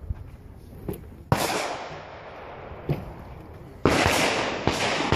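Pistol gunshots on a shooting range at uneven intervals, each loud shot followed by a long echoing tail. One comes about a second in, and a quicker cluster of three comes near the end, with a couple of fainter shots between.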